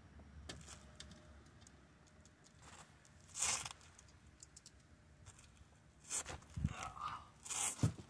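Handling noise from work on a car's door trim and its screws: short scraping rustles about three and a half seconds in and twice near the end, with a dull knock and a sharp click among the later ones.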